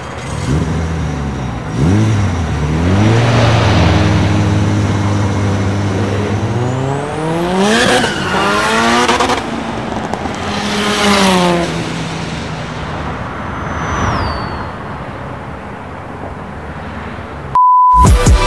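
Car engine sound laid over the model animation: the revs climb, hold steady for several seconds, then sweep up high and fall away as the car passes, with a second, smaller rise and fall after it. Near the end the engine sound cuts to a steady test-tone beep.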